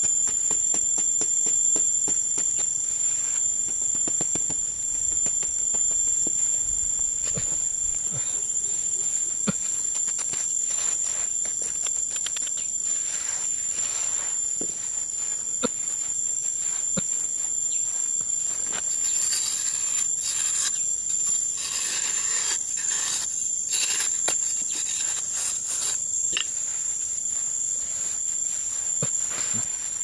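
A steady high-pitched drone of insects, likely crickets, runs throughout. Over it come scattered short knocks and scrapes from a small hoe and bare hands digging dry sandy soil, thickest in the second half.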